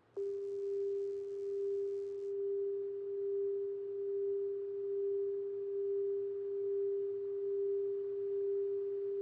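A single steady pure tone of middle pitch, held without a break and swelling gently in loudness about once a second. A soft hiss sits under it for the first two seconds or so.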